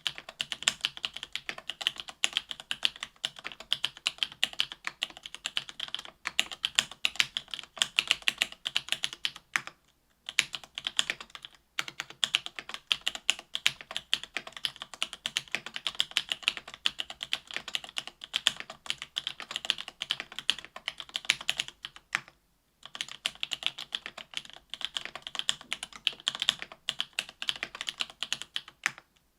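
Continuous typing on an AL.BOK mechanical keyboard with stock SP-Star Meteor White 57 g linear switches, an aluminium plate and GMK keycaps: a rapid stream of key clacks. There are brief pauses about a third of the way in and again about three quarters through.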